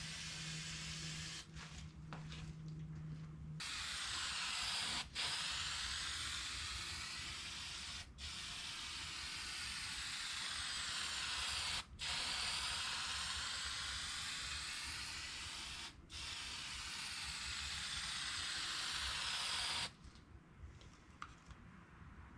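Aerosol spray paint can spraying in several long bursts with brief breaks between them, starting a few seconds in and stopping about two seconds before the end.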